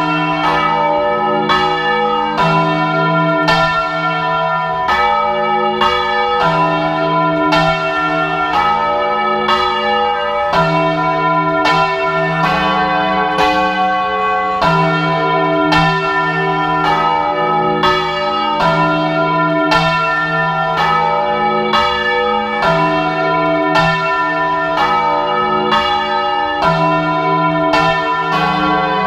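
Several church bells swung full circle by hand in a Spanish-style volteo, ringing loud and close. Their strokes follow one another steadily, a few a second, overlapping into a continuous peal with a deep hum note underneath.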